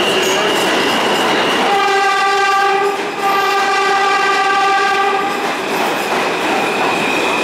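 R160 New York City subway train moving along the platform, its wheels rumbling and rattling on the rails. About two seconds in its horn sounds as a steady, high tone: a short blast, then a longer one that stops at about five and a half seconds.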